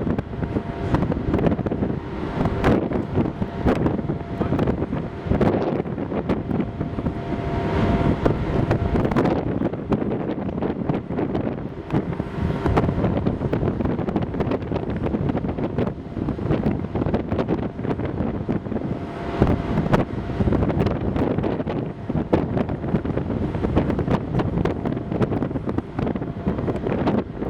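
Wind buffeting the microphone in uneven gusts over the steady hum of a ferry's machinery.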